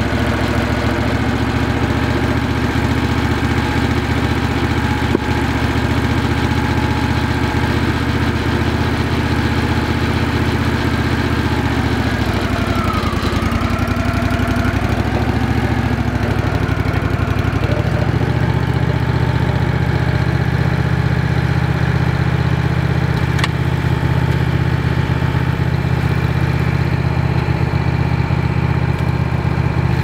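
Wood-Mizer LX150 sawmill's engine running steadily. Its pitch dips and wavers for a few seconds around the middle, then settles. A single click comes about five seconds in.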